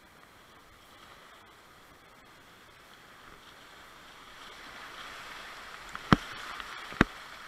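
River rapids rushing around a whitewater kayak, the water noise swelling over the last few seconds as the boat runs into the rapid. Two sharp knocks about a second apart near the end are the loudest sounds.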